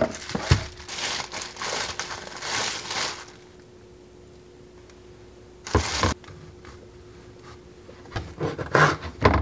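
A plastic bag crinkling as an everything bagel is pulled out of it, then a single sharp knock about six seconds in. Near the end, a knife saws through the bagel on a plastic cutting board in several short scraping strokes.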